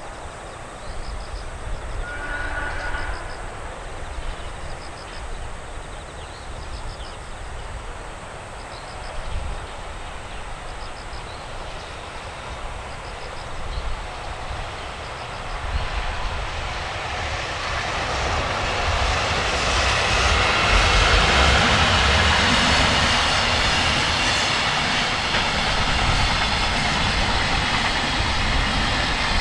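A JR Freight train hauled by an electric locomotive approaching and passing close by, its rolling noise building from about halfway in and staying loud. Before it arrives, a level-crossing warning bell rings in an even pattern about once a second. Strong wind buffets the microphone throughout.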